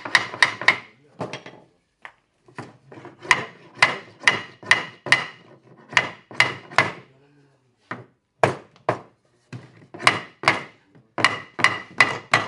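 Repeated hammer blows on wood, struck in quick runs of several blows with short pauses between. Each blow has a brief ringing.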